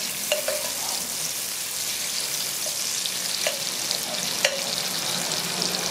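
Sliced onions, hot pepper, pimento peppers and garlic sizzling in hot oil in a pot while a metal spoon stirs them, with a few short scrapes of the spoon against the pot. This is the chonkay: the aromatics being fried in oil before the pumpkin goes in.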